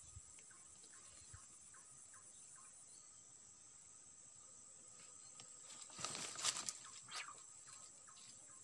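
Faint, steady high drone of insects in the swamp vegetation, with a few faint short chirps in the first couple of seconds. About six seconds in, a brief bout of rustling handling noise as the angler moves with his rod.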